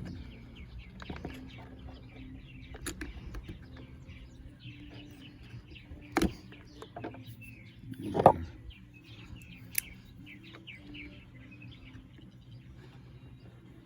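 Small birds chirping and twittering over a faint steady hum, with two sharp knocks about six and eight seconds in, the second the louder.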